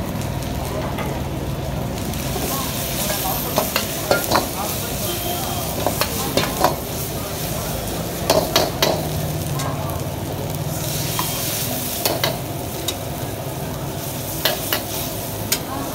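Chilli chicken stir-frying in a wok, sizzling steadily, while a long steel ladle scrapes and knocks against the wok in irregular sharp clicks.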